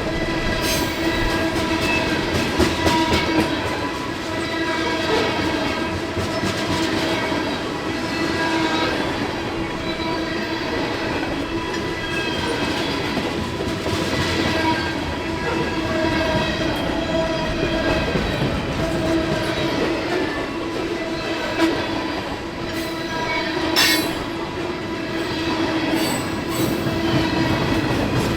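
CSX freight train M426's cars rolling over a grade crossing, the wheels keeping up a steady squealing tone that dips now and then, with clicking of the wheels over the rail joints beneath it.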